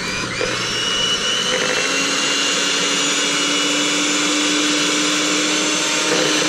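Electric hand mixer running at a steady speed, its beaters whisking raw eggs in a bowl to beat them until they lighten in colour. The motor whine rises as it spins up at the very start, then holds an even pitch.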